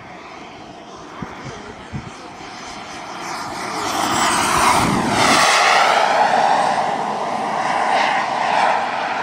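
The model turbine jet engine of a Skymaster BAE T-45 Goshawk RC jet running in flight. It grows louder from about three seconds in and stays loud, with sweeping tones about four to five seconds in.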